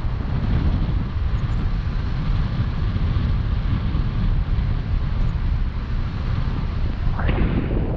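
Wind rushing over an action camera's microphone in flight under a tandem paraglider: a steady low rumble, with a brief rising sweep near the end.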